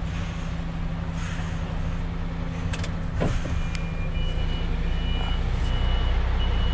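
Articulated truck's diesel engine idling, heard from inside the cab. About halfway through, the truck's reversing alarm starts beeping in a steady rhythm as it goes into reverse.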